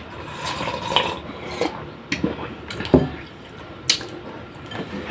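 Spoons and utensils clinking against bowls and plates during a meal of soup, in a handful of separate sharp taps, with faint liquid sounds between them.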